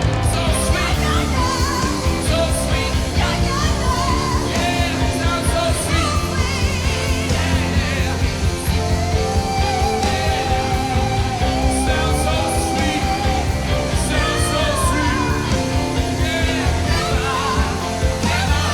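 Live rock band with a singer belting over it; a long held note with vibrato comes about nine seconds in and lasts several seconds.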